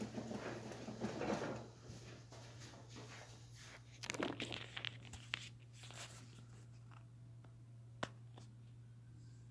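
Handling noise: irregular rustling and scraping in two spells, with a few sharp clicks, the last about eight seconds in.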